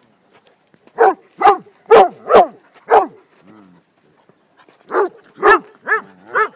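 A dog barking in two runs: five sharp barks about half a second apart, a pause of about two seconds, then four more.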